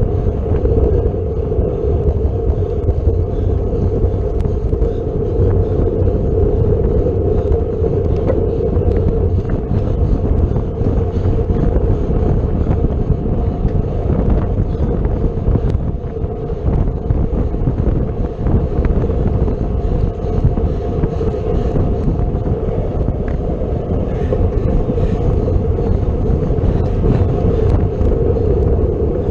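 Wind buffeting the microphone of a camera mounted on a road bicycle ridden at speed, with steady tyre and road noise and a constant droning hum.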